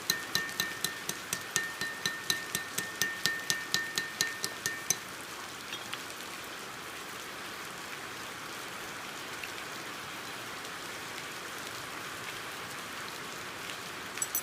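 Hammer tapping the steel outer piece of livestock ear marking pliers on an anvil, in quick light strikes about four a second, each with a short metallic ring; the tapping stops about five seconds in. A steady, even hiss remains after it.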